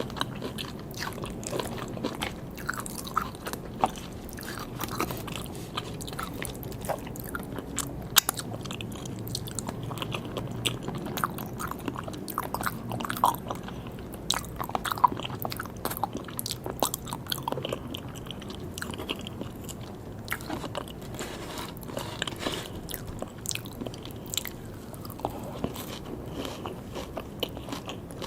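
Close-miked chewing and biting of sushi, with many short sharp crunches and mouth clicks scattered throughout.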